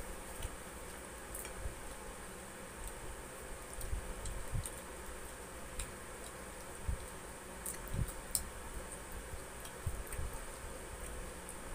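Eating sounds at the table: scattered small clicks and smacks of chewing, and of fingers picking apart fried tilapia, with a few dull soft knocks, the loudest about eight seconds in, over a steady faint hiss.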